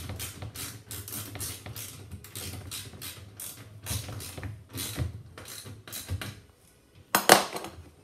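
Rubber door seal of a Miele front-loading washing machine being worked by hand back into place around the drum opening: a quick run of short clicks and scrapes, about two to four a second, that thins out, then one short, louder noise just after seven seconds.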